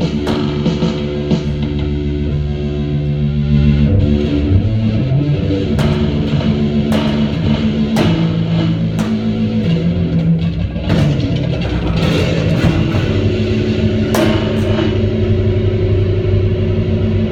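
Electric bass guitar played through a small combo amplifier with effects, loud, holding long notes that change every second or two, with occasional sharp picked attacks.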